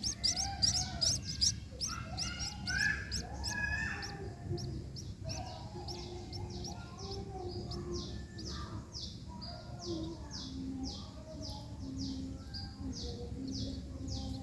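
Small munias chirping: a quick flurry of high chirps in the first few seconds, then a steady run of short high chirps about two a second, with softer, lower calls beneath.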